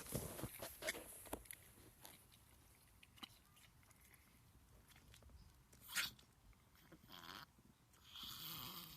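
A dog's noisy breathing in fits: several short breaths in the first second and a half, a sharp one about six seconds in, and a longer one near the end. The owner suspects reverse sneezing.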